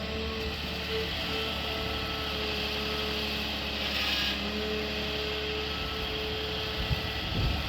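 Excavator's diesel engine running steadily under a constant whine. There is a brief hiss about four seconds in and a couple of low knocks near the end.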